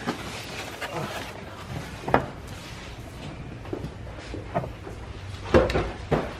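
Scattered knocks and clunks of parts and tools being handled while a car is stripped, loudest about two seconds in and again near the end.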